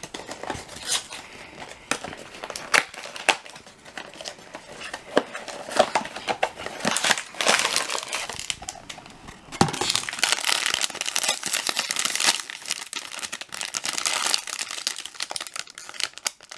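A cardboard blind box being torn open, then its foil bag crinkling and tearing in the hands; scattered crackles at first, with the crinkling turning dense and continuous about ten seconds in.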